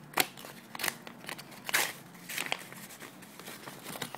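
Paper package wrapping being handled and opened by hand: a series of short crackles and rustles.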